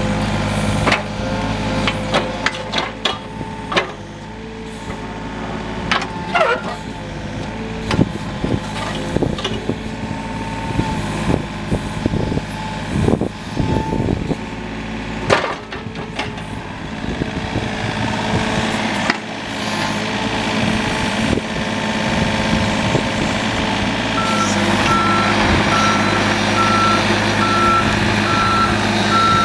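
John Deere 35D mini excavator's diesel engine running under load, with scattered clanks and squeaks from the boom, bucket and tracks as the machine works. Near the end a steady, evenly paced beeping alarm starts as the excavator travels on its tracks.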